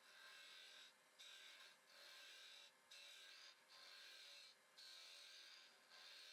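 Hand strokes of an abrasive rubbing back and forth on wood, about one stroke a second with short pauses between. The strokes are quiet and hissy.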